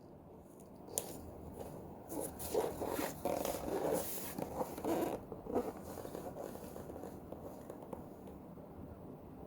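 Cardboard product box being handled and turned over: a quick run of rubbing, scraping strokes for a few seconds, then faint handling.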